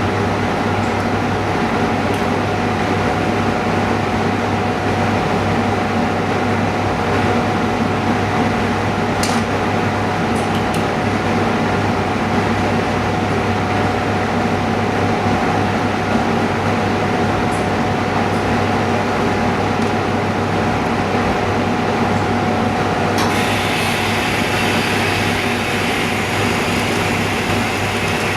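Steady mechanical hum from a running motor, like a fan or pump, with a constant low drone and a steady higher tone. A few faint clicks sound, and a higher hiss joins about 23 seconds in.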